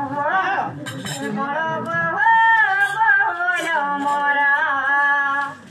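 A voice singing a Sambalpuri folk song in long, drawn-out held notes that waver and bend in pitch, breaking off just before the end.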